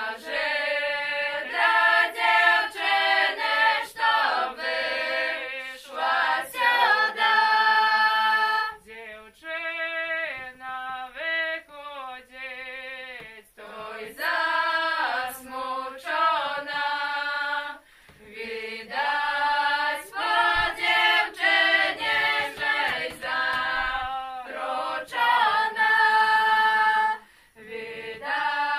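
A group of girls singing a Belarusian folk song unaccompanied, in phrases broken by short breaths. The singing drops to a quieter passage about nine seconds in and comes back to full strength a few seconds later.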